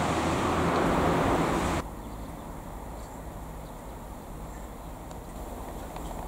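Steady vehicle noise, loud at first, that cuts off suddenly about two seconds in, leaving a faint, even outdoor background.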